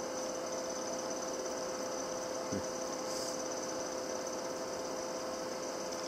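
Steady electrical hum: a constant mid tone and a high whine over hiss, with a short soft thud about two and a half seconds in and a brief hiss just after.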